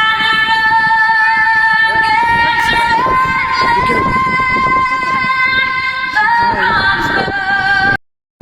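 A woman singing long held high notes, stepping up in pitch and then back down, that cut off suddenly near the end.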